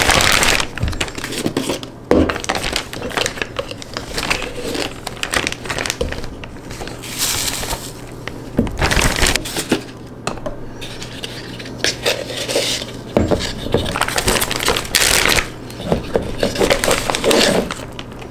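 Clear plastic zip-top bags crinkling and rustling as they are handled, with irregular clicks and knocks from plastic supplement tubs, their lids and a scoop while pre-workout powder is scooped out.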